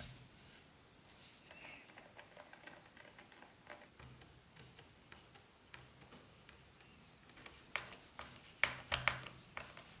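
Faint clicks and light scraping of a precision T5 Torx screwdriver working tiny screws out of a laptop's aluminium bottom case. The clicks get sharper and more frequent over the last two or three seconds.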